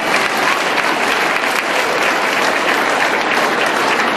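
Audience applauding steadily, a dense run of many hand claps.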